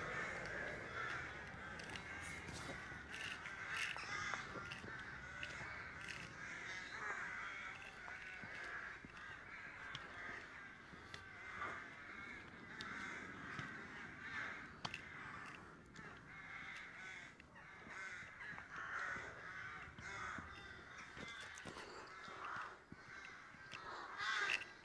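A large flock of crows cawing, many overlapping calls at once in a continuous faint chatter, the birds gathering to roost.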